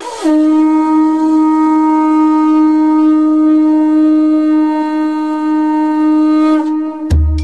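One long note blown on a horn-like wind instrument, sliding up into pitch at the start, held steady and stopping about six and a half seconds in. Drum beats start just at the end.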